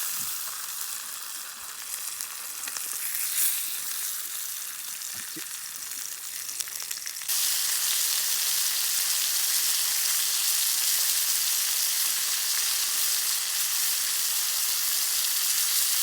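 Meat sizzling as it cooks over a campfire: a steady crackling hiss that jumps abruptly louder about seven seconds in.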